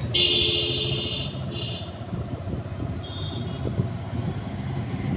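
Road traffic heard from a moving vehicle: steady engine and road noise, with a vehicle horn sounding for about two seconds near the start and a short horn blast about three seconds in.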